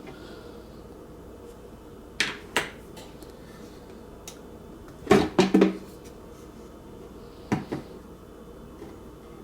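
Handling of a drip coffee maker's parts: a series of sharp clicks and knocks. There are two about two seconds in, a louder cluster of three or four about five seconds in with a short hollow ring, and two more near the end.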